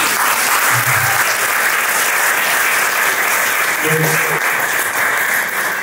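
Room full of guests applauding, a steady patter of clapping, with a couple of brief voices rising out of it about a second in and again near four seconds.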